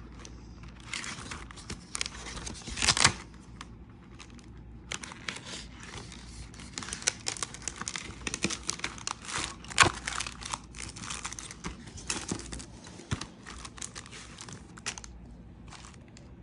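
Pages of spiral-bound workbooks being flipped and handled by hand: irregular paper rustling and crinkling, with louder page turns about 3 seconds and 10 seconds in.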